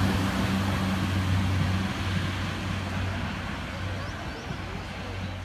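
Class 142 Pacer diesel railcar pulling away, its diesel engine drone steady and low, fading gradually as the train recedes.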